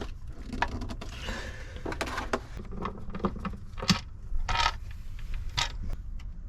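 Scattered clicks, knocks and rustling of hands working on parts with small tools, one sharper click about four seconds in, over a steady low rumble.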